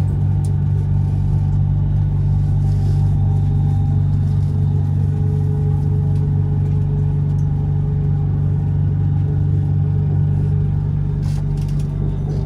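Bangkok BTS Skytrain electric metro train running along the elevated track, heard from inside the car: a steady low rumble and hum with a faint steady motor tone above it.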